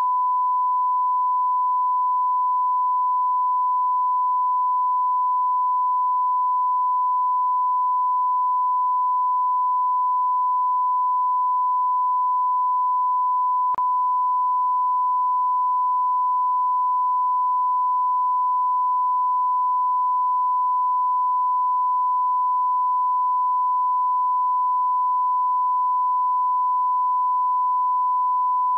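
Continuous 1 kHz sine-wave test tone, the audio line-up signal that goes with a television test card: one steady, unbroken pitch.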